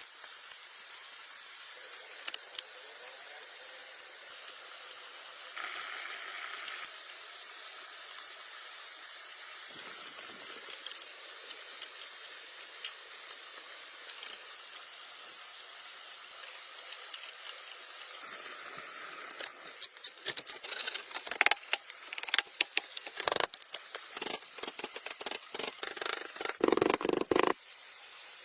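Steady hiss of rushing water from a waterfall. Over the last third a quick run of sharp clicks and knocks sounds over it, some loud.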